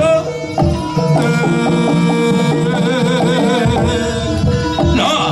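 Music with drums and a melody. A wavering, vibrato line rises above it about three seconds in.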